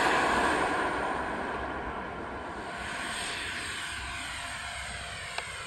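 Arrows RC MiG-29 twin electric-ducted-fan jet at full power on its takeoff run: a high fan whine over rushing air, loudest at first and fading steadily as the jet lifts off and climbs away.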